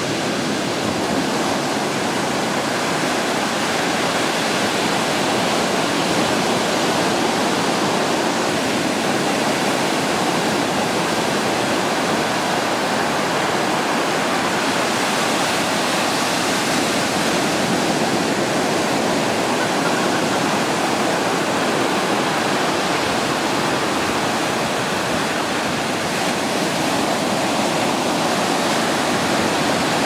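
Ocean surf breaking and washing up a sandy beach: a steady wash of waves, with no single crash standing out.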